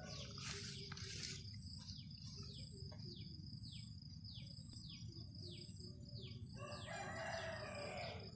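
Faint rooster crowing near the start and again near the end, while another bird repeats a short falling note about twice a second over a steady high tone.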